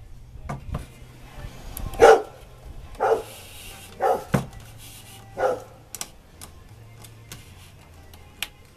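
A dog barks four times, about a second apart, in the middle of the stretch. Light clicks and taps come in between, over a low steady hum.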